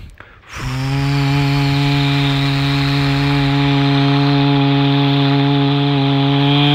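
A man's voice humming one long, steady drone about half a second in, mimicking a truck's engine.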